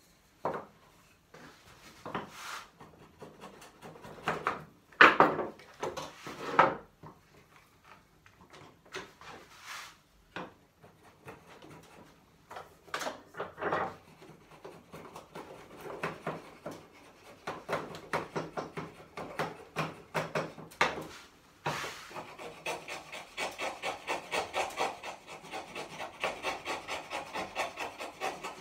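A hand tool worked against wood while trimming a bridle joint: separate scrapes and knocks in the first half, then a fast, even back-and-forth rubbing of several strokes a second over the last several seconds.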